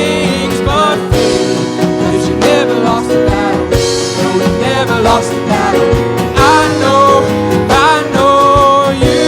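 Worship band music with guitar, and a melody line that bends and slides between notes.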